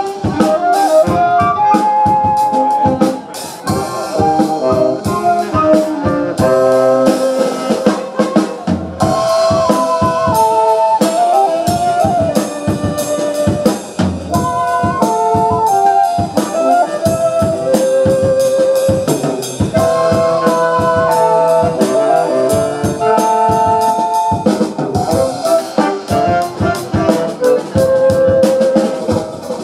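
Small jazz band playing live: saxophones and flute carry the melody over a drum kit keeping a steady beat.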